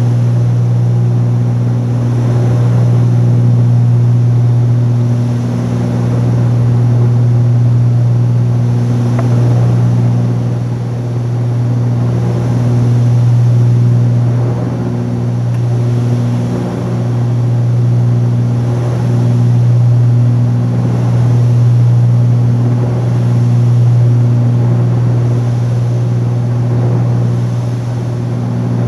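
Twin-engine Cessna 310Q in flight: the steady drone of its two six-cylinder Continental piston engines and propellers, heard in the cabin. The drone swells and fades in a slow, regular beat about every two seconds.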